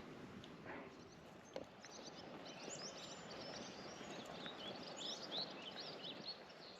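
Small birds singing in quick runs of short high chirps over a faint, steady outdoor hiss.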